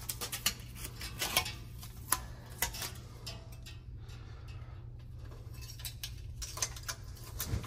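Irregular clicks and crackles of tape being handled and pressed around a fridge's water supply hose, over a steady low hum.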